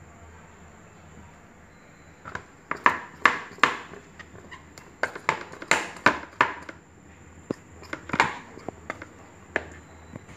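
A knife scraping hot-water-loosened hair off a goat's leg: a run of quick, irregular scraping strokes starting about two seconds in and thinning out near the end.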